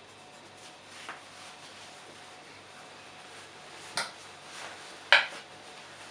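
Kitchenware being handled: three short knocks and clinks, about a second in, about four seconds in, and a louder one just after five seconds, over a faint steady hum.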